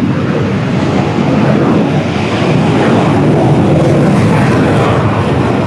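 Loud aircraft engine noise, steady and slowly growing louder.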